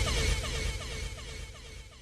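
Dancehall DJ sound effect fading out: a rapid train of short falling zaps, about five a second, over a hiss, dying away steadily as an echo tail.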